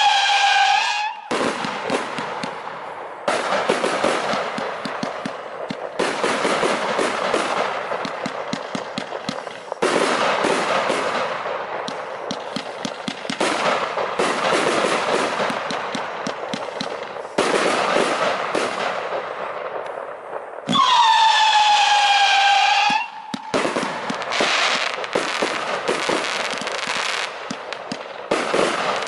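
A 144-shot 25 mm fireworks compound cake firing. A low-pitched howling whistle from one of its howler shots at the start, dropping in pitch and then holding, and another about 21 seconds in. Between them, long stretches of dense, rapid crackling from the bursting shots.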